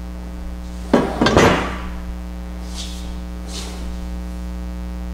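A stainless steel motorcycle exhaust pipe set down on a workbench among other pipes, clanking a couple of times with a metallic ring about a second in, over a steady electrical hum.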